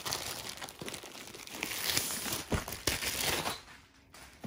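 Thin plastic wrapping crinkling as it is pulled off a rolled diamond-painting canvas, a dense crackle that dies down about three and a half seconds in.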